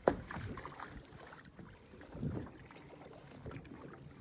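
Choppy water slapping against the side of a fishing boat, with wind on the microphone. A sharp knock sounds right at the start, the loudest moment, and the water swells up again about two seconds in.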